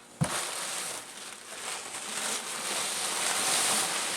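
A thump about a quarter second in, then steady rustling and crinkling of packing material and cardboard as a shipping box is opened and unpacked.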